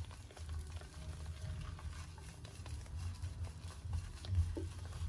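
Hands working shampoo into a wet puppy's fur: soft, uneven wet squishing and rubbing.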